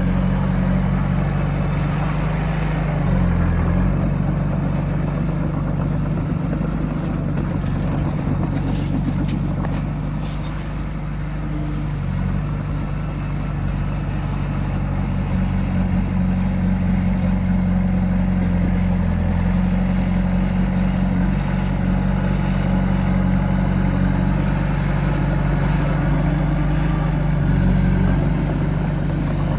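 Heavy diesel engine of earthmoving machinery running steadily under load, its pitch shifting a few times with the throttle, with a few brief clanks about nine to ten seconds in.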